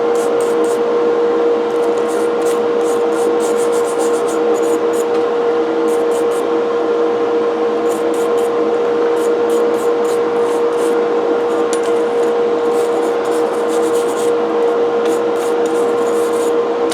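A motor-driven wire brush wheel running with a steady hum while scrubbing cast iron coffee grinder parts, with repeated short scratching as the bristles catch the metal.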